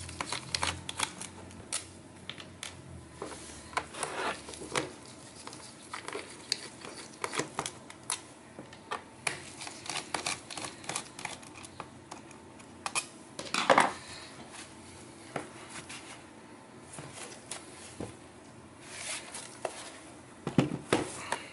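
Gloved hands handling the plastic case of an Asus GL502VT laptop on a wooden table: irregular clicks and taps with a few longer rubbing sounds, and the laptop is turned over and set down with a couple of thumps near the end.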